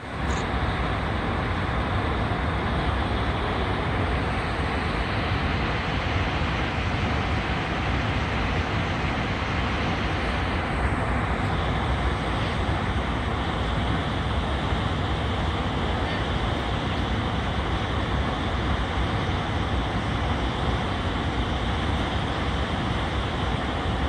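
Water pouring over a wide waterfall and running through the river below, heard as a steady, even rush of noise.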